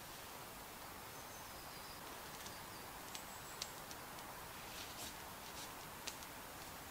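Small twig campfire crackling faintly, with scattered sharp pops and snaps as it is fed and the flames take hold, over a steady low hiss. A couple of thin, high whistling notes sound in the first half.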